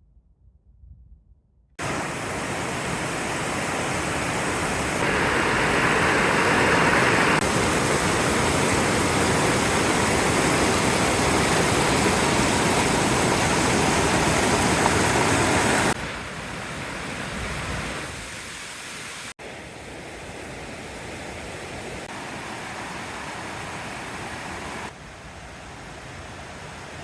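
Steady rushing water, loud and even. It steps up and down in level abruptly several times, as if in separate cut sections, and stops suddenly near the end.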